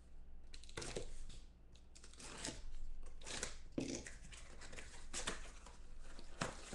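Cardboard trading-card boxes handled and moved on a table by hand: irregular rustling and scraping of cardboard in several short bursts.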